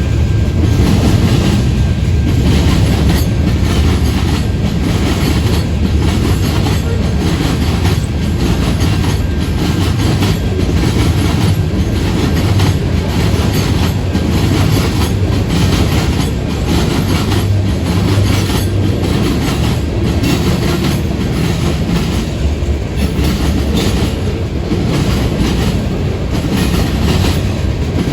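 Freight cars of a manifest train rolling past at speed: a steady, loud rumble with repeated clicking of the wheels over the rail joints.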